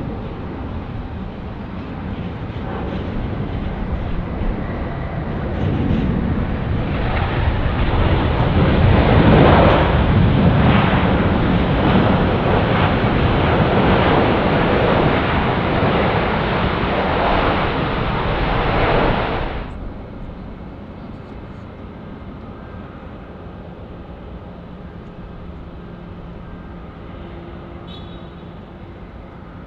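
Airbus A380 jet engines in reverse thrust after touchdown: a loud rushing roar that builds, holds, then cuts off suddenly about two-thirds of the way through. After the cut comes a much quieter, steady hum of a jet airliner on approach.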